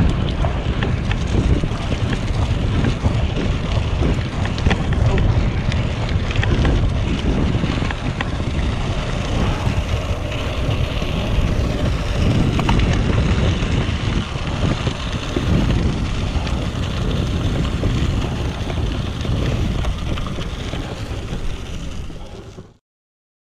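Wind buffeting the microphone of a handlebar-mounted GoPro on a moving bicycle, a steady rumble that cuts off suddenly near the end.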